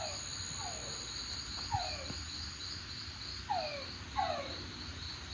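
Steady, rapidly pulsing chorus of insects, with several short, falling yelp-like calls from another animal at irregular intervals.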